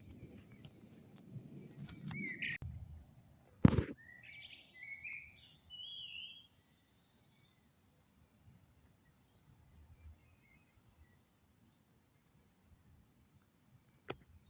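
Birds chirping outdoors with short, high calls a few seconds in. A single sharp knock just before the chirps is the loudest sound, with a fainter click near the end and low background noise at the start.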